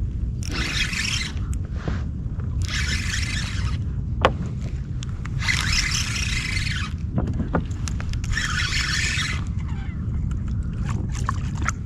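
Spinning reel cranked in four short spurts a couple of seconds apart, each a whirring hiss of about a second, as a topwater lure is worked back across the water. A low steady rumble of wind and water lies beneath.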